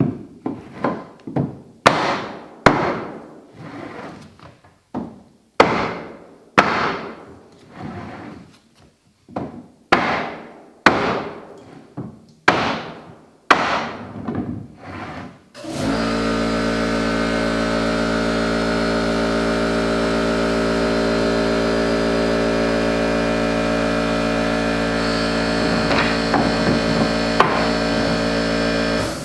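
Hammer striking a 2x4 block laid against tongue-and-groove hardwood floorboards, tapping them tight, about one blow a second. About halfway through the hammering stops and a steady drone with several held tones takes over.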